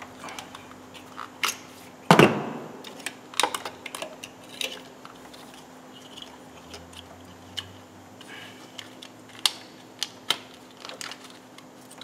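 Sharp plastic clicks and knocks, the loudest about two seconds in, of a coil-on-plug ignition coil and its connector being worked by hand on top of the engine as a new coil is fitted. A faint steady hum runs underneath.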